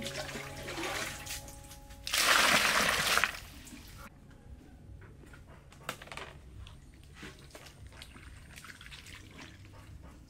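Water poured into a plastic basin of vegetables, splashing loudly for about a second starting about two seconds in. Afterwards, faint clicks and rustles as the wet vegetables are handled in the basin.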